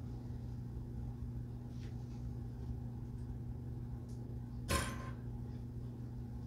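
Plastic sewing clips being handled and fastened onto a folded fabric strip: a few faint ticks, then one sharp click about three-quarters of the way through, over a low steady hum.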